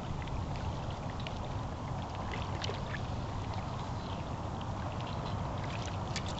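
Wind rumbling on the microphone, with small waves lapping against a rocky lakeshore and scattered light splashing ticks.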